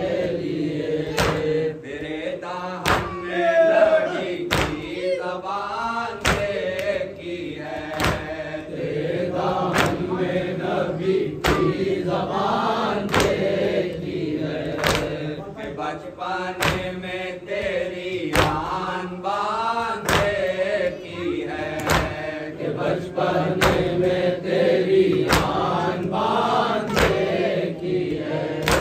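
Men reciting a noha, an Urdu mourning elegy, chanted together in a slow melody, with sharp hand strikes on the chest (matam) keeping an even beat of about one a second.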